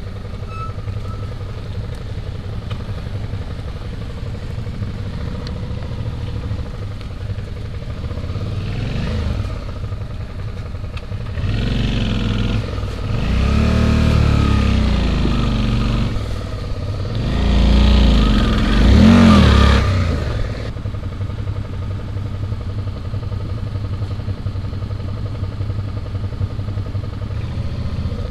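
Suzuki V-Strom's V-twin engine running at low speed off-road. It is revved up and down in two spells of harder throttle in the middle, the second the loudest.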